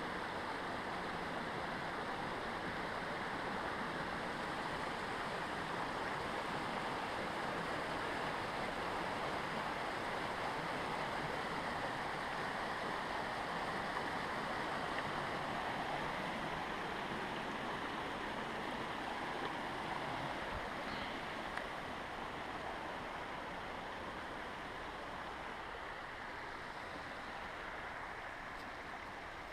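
Steady rush of flowing water, an even unbroken hiss that eases slightly near the end.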